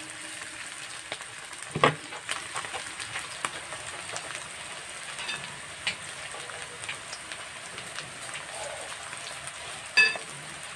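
Sliced onions, chillies and tomato sizzling in oil in a wok: a steady crackle with scattered small pops. Two louder knocks stand out, about two seconds in and near the end.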